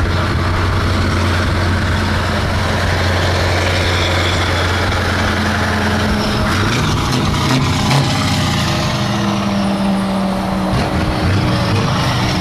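Scania 143 450's V8 diesel with an open exhaust, running steadily at road speed close by, with tyre and road noise. About six seconds in its note breaks up and shifts, then settles into a new steady tone.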